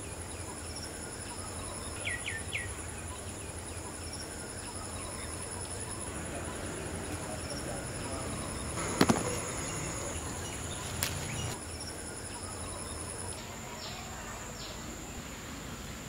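Steady high-pitched drone of insects, with a few short chirps about two seconds in and one sharp crack about nine seconds in.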